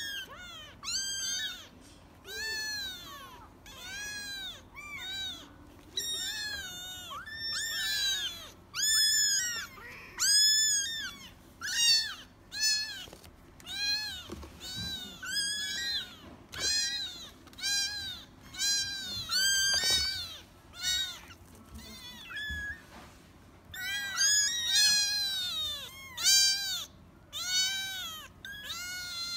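A litter of young kittens mewing over and over, several at once: thin, high mews that rise and fall in pitch, one or two a second, often overlapping.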